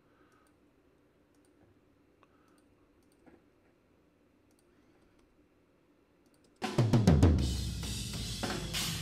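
Near silence with a few faint clicks for about six and a half seconds, then loud playback of the raw tom-microphone tracks of a live-recorded metal drum kit starts suddenly: dense, fast drum hits with a lot of bleed from the rest of the kit into the tom mics, only partly held back by gates.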